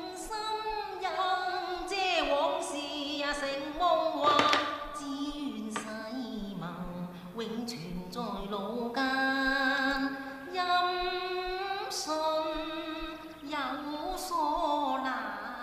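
A singing voice over music, sliding between long held notes, some with a wavering vibrato. A few short knocks sound through it.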